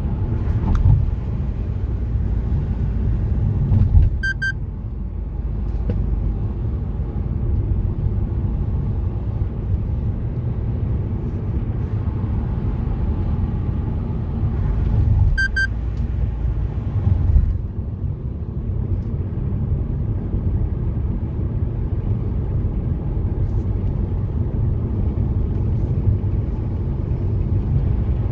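Car driving along a road: a steady low rumble of road and engine noise. A short high double beep sounds twice, about eleven seconds apart.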